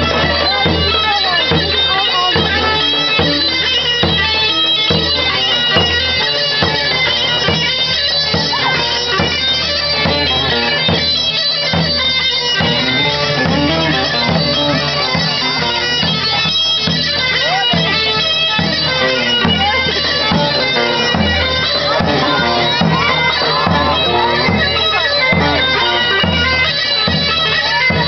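Live Turkish folk dance music for a halay: a davul drum beating a steady rhythm under a loud reed wind instrument playing the melody, without a break.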